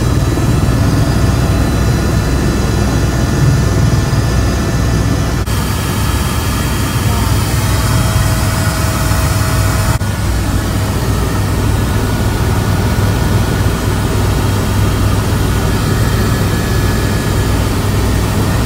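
Steady, loud drone of a helicopter's engine and rotors, heard from inside the cabin in flight. The sound cuts abruptly twice, about five and ten seconds in, as separate clips are spliced together.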